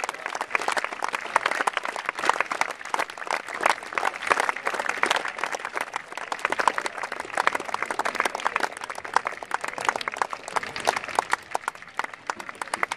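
Crowd applauding: dense, continuous clapping from many spectators, easing off slightly near the end.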